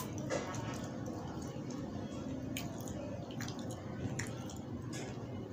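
Person eating by hand: soft squishing and chewing of egg, dal and flatbread, with a few small sharp clicks.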